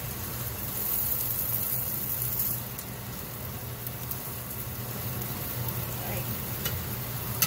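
Broth-dipped tortillas and diced onion and pepper sizzling steadily on a greased flat-top griddle, over a steady low hum. A sharp tap comes right at the end.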